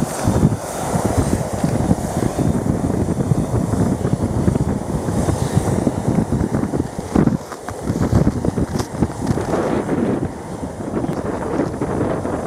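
Boeing 737-500's CFM56 turbofan engines running as the jet rolls away down the runway, a continuous rumble with a faint high hiss. Wind buffets the microphone.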